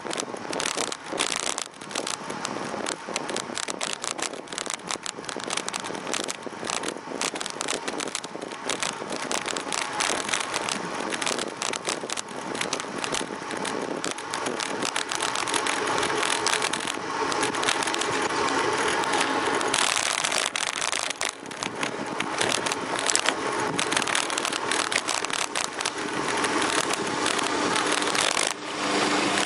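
Riding noise picked up by a camera mounted on a moving bicycle: wind rushing over the microphone and tyre noise on the asphalt. Over it runs a constant fast rattling and clattering of the camera and bike frame over the road surface.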